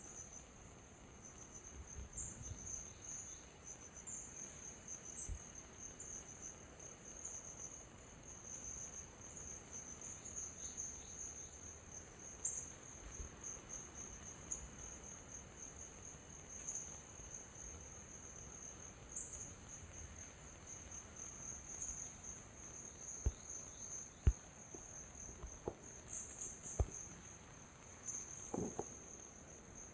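A steady, high-pitched insect chorus, with a few sharp clicks in the last several seconds.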